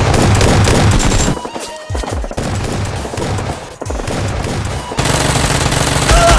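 Rapid machine-gun fire, loudest in the first second and again near the end, over an electronic music track.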